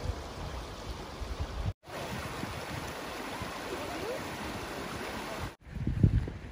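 A shallow mountain creek running steadily over rocks. The sound drops out briefly twice at edits. Near the end a gust of wind buffets the microphone with a loud low rumble.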